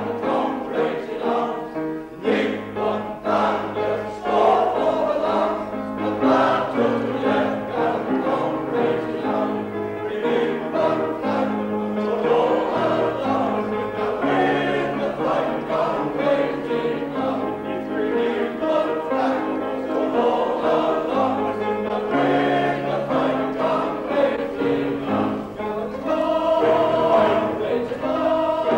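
Male voice choir singing in harmony, holding long sustained notes.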